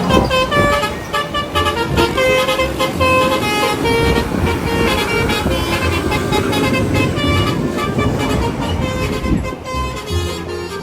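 Bus 'telolet' musical horn playing a quick tune of short notes that step up and down in pitch.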